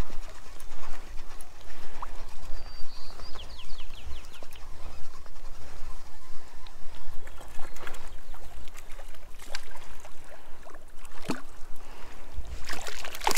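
Low wind rumble on the microphone, with small clicks and water sounds around an inflatable raft. Near the end there is a burst of splashing as a hooked brook trout thrashes at the surface beside the raft.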